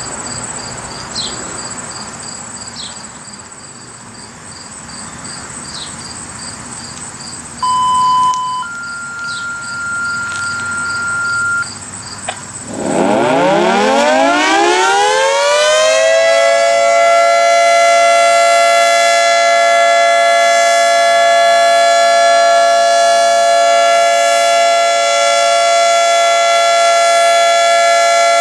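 Federal Signal 3T22 three-tone outdoor warning siren starting up for a monthly test: about 13 seconds in it winds up, its pitch rising for some three seconds, then holds a steady chord of several tones. Before it, insects chirp and two short electronic beeps sound.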